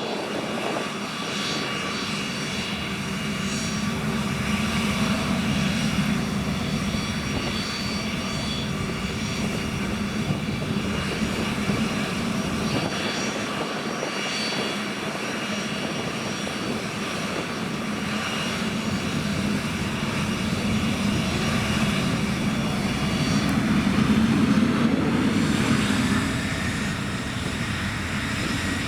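Cessna CitationJet CJ2+ business jet's twin Williams FJ44 turbofans running, a steady jet noise with high whining tones, growing louder near the end before easing slightly.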